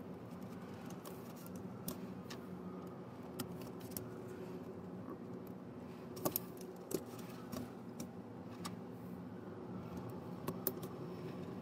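LEGO Technic plastic pieces clicking and rattling as they are handled and pressed together, with a few sharper snaps about six seconds in and again near the end, over a faint steady hum.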